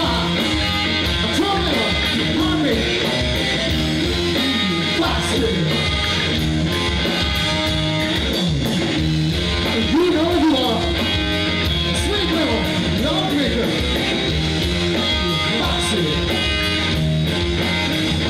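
A live blues band: a man sings lead over electric guitar, bass guitar and drums.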